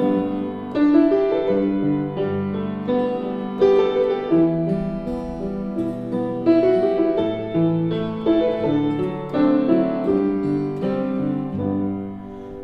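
Piano playing a slow, gentle passage of chords and melody with no voice, a new note or chord about every half second to second, easing down in level near the end.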